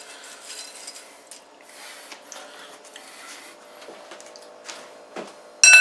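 Faint rustling and soft handling noises over a low steady hum, then near the end a short, loud, high-pitched ring.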